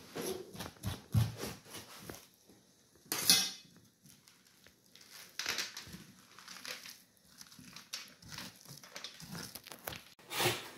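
Pumpkin seeds and stringy pulp being scraped out of a halved pumpkin by hand and dropped onto a metal tray: irregular soft scraping and light clatters, with one louder clatter about three seconds in.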